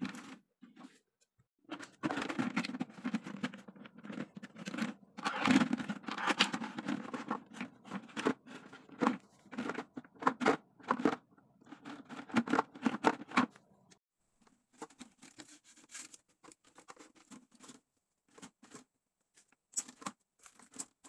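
Thin clear plastic of a cut-up water gallon jug crinkling, scraping and clicking as it is handled and fitted together. The noise is busy and irregular for the first two-thirds, then thins to scattered taps and rustles.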